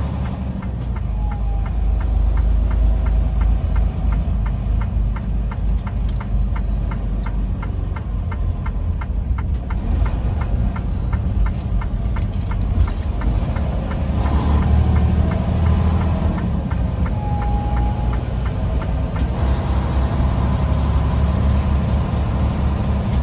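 Semi truck's diesel engine running steadily on the move, a deep rumble, with a fast regular ticking through about the first half.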